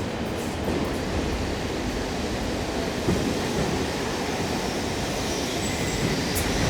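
Railway station hall ambience: a train runs with a steady low rumble under the echoing hall noise. A single knock comes about three seconds in.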